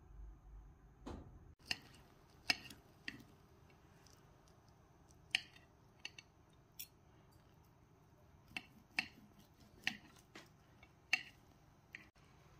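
Metal knife and fork clicking and scraping against a ceramic plate while cutting a chicken breast: about a dozen sharp, irregular clicks.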